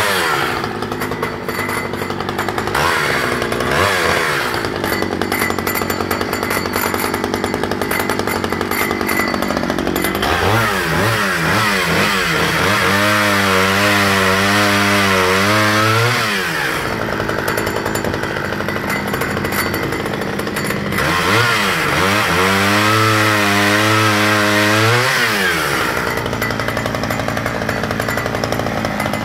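Early Stihl 010AV 37cc two-stroke chainsaw running, revving up and holding high revs for several seconds as it cuts through a log, about ten seconds in and again about twenty-one seconds in, dropping back toward idle between the cuts.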